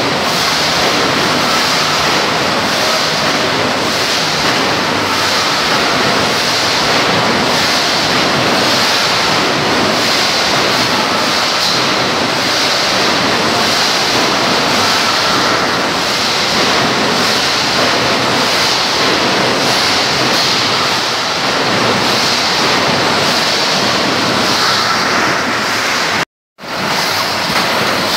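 Mashtronics wire mesh welding machine running: a steady loud mechanical noise with hiss, pulsing about once a second as it cycles. The sound cuts out for a moment near the end.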